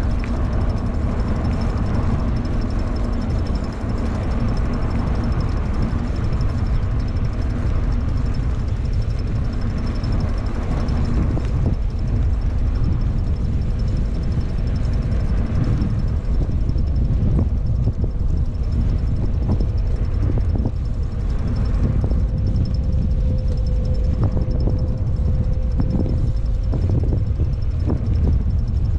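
Wind buffeting the microphone of a camera on a moving e-bike: a loud, steady low rumble, with the bike's rolling noise on pavement beneath it.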